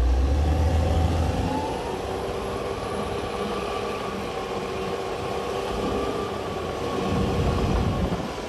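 Diesel engine of a CAT D6R XL crawler bulldozer running under load, with a heavy low rumble in the first second and a rise in loudness about seven seconds in.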